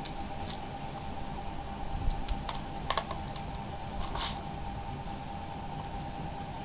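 Plastic cat track toy clicking and rattling as a kitten bats at the ball inside it and the spring wand: a few sharp clicks, the loudest about three and four seconds in, over a steady faint hum.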